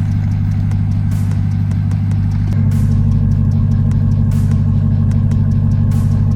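Pickup truck engine running steadily at low speed while crawling an off-road trail, its low hum getting louder about two and a half seconds in as the throttle opens.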